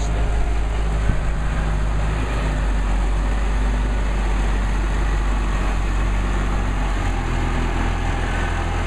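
Case IH Magnum 190 CVT tractor's diesel engine running steadily at idle as the tractor rolls slowly by; at this light load the continuously variable transmission keeps the engine idling instead of revving. The low engine note shifts slightly about seven seconds in.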